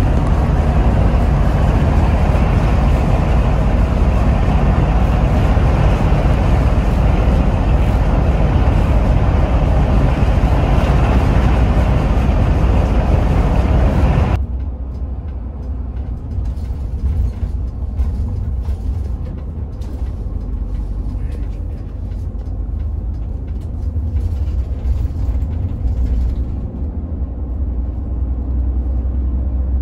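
Cabin noise inside a Hino RM 280 coach on the move: a steady engine rumble under road and tyre hiss. About halfway through it cuts abruptly to a quieter, mostly low rumble.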